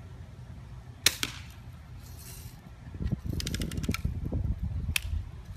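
Daisy Red Ryder spring-powered BB gun fired with a sharp crack about a second in, a second, quieter click right after. About three seconds in, the cocking lever is worked with a quick run of ratcheting clicks, and a single sharp snap comes near the end. Low wind rumble on the microphone throughout.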